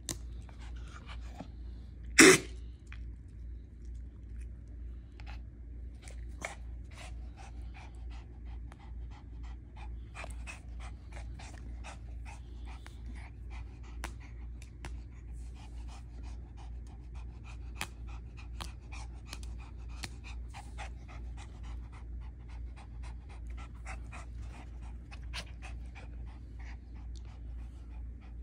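Small dog tugging hard at a toy, making quick short breathy sounds about two to three a second, with one loud sharp burst about two seconds in.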